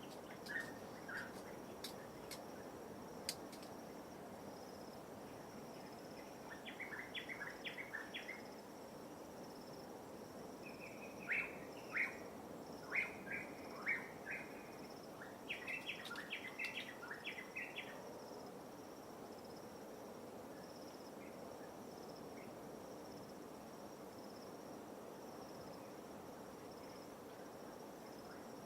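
Birds calling in three bursts of short, quick chirps over a steady high-pitched insect trill and a soft, even wash of light waves. A few sharp clicks come in the first few seconds.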